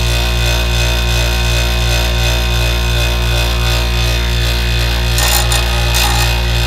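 Bench grinder motor running steadily with a low hum. About five seconds in, a steel drill bit is touched to the stone wheel in short strokes, adding a gritty grinding hiss, as the bit is shaped into a brad-point wood bit.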